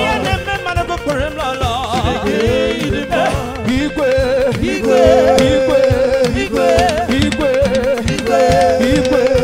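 Live praise-and-worship band music: a wavering melodic line, with singing, over a steady drum beat.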